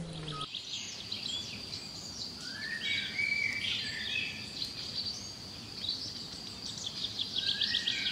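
Birds chirping in short repeated calls over a steady high-pitched trill.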